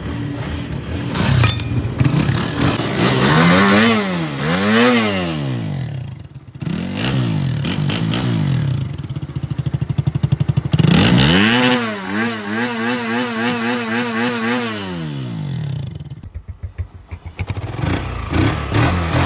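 Honda 125 motorcycle's single-cylinder four-stroke engine revved by hand. It gives two quick blips a few seconds in, then a longer rev held high for several seconds that falls back. Near the end it drops to an uneven low running before picking up again.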